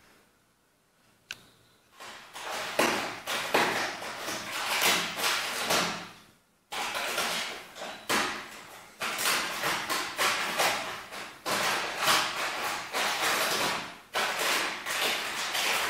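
A tabby cat biting and pawing at a brown paper bag, crinkling and rustling the paper in repeated bursts. The bursts start about two seconds in and pause briefly near the middle.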